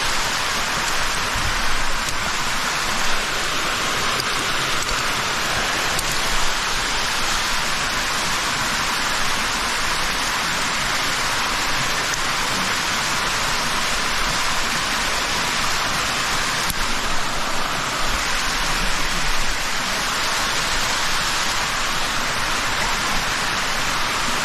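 Mountain stream water rushing and splashing over rocks, a steady loud hiss close by.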